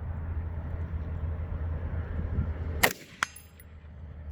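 A single rifle shot, followed about a third of a second later by a short metallic ping as the bullet strikes a steel target downrange.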